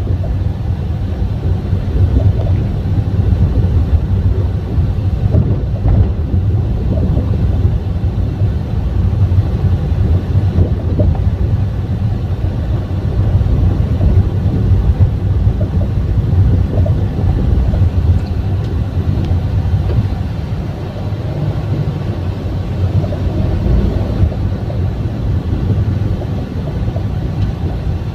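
Honda Brio RS road noise while driving: a steady low rumble of tyres on the road. The owner finds it irritating and traces it partly to the suspension.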